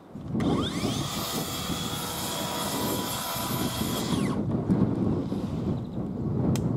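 Plunge-cut track saw on its guide rail spinning up with a rising whine, running at full speed for a few seconds while trimming the end of a softwood panel, then winding down with a falling whine about four seconds in; a steady low rumble carries on after it.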